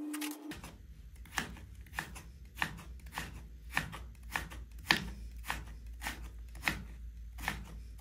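Kitchen knife cutting radish into shreds on a chopping board: a steady run of strokes, a little under two a second, each one the blade striking the board. A faint low rumble runs underneath.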